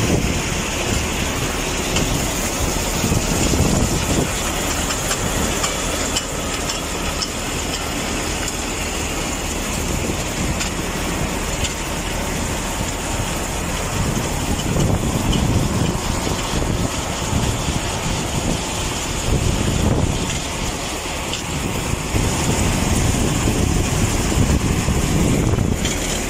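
Salt-processing plant conveyor machinery running steadily: belts and motors make a continuous mechanical drone with a faint high whine, and uneven low rumbles come and go.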